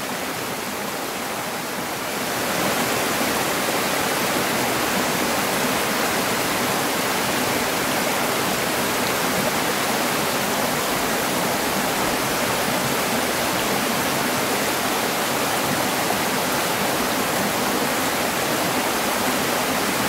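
Small woodland stream cascading over mossy boulders: a steady rush of running water that grows slightly louder about two seconds in.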